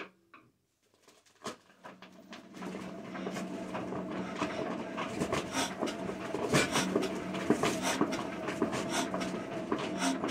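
Old Witte diesel engine being hand-cranked: the flywheel spins up over the first few seconds and keeps turning with a steady mechanical clatter, while the person cranking breathes hard. The engine is being turned over to push fuel through and get the injection nozzle to crack, and is not yet firing.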